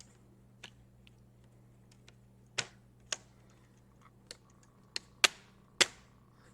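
Plastic screen bezel of a Dell Inspiron 15 5558 laptop being pressed back onto the display lid. Its clips snap into place with about seven sharp, irregular clicks, the loudest two near the end.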